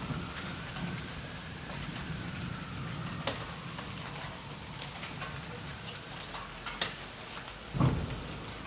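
Steady rain falling, with a few sharp drop ticks close by, about three and seven seconds in, and a low thump near the end.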